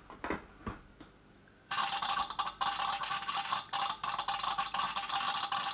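Smart plug's relay rapidly clicking open and closed, a rattly chatter that starts suddenly about two seconds in. The relay cannot hold in because its power supply is failing, which the owner puts down to the power-supply capacitors.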